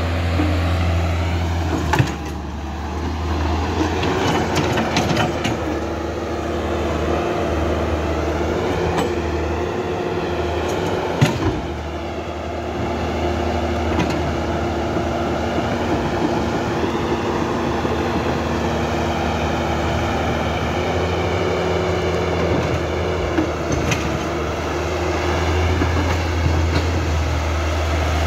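Electric motors and gears of an RC Huina excavator whirring, their pitch rising and falling as the arm and tracks move, with two sharp knocks about 2 and 11 seconds in.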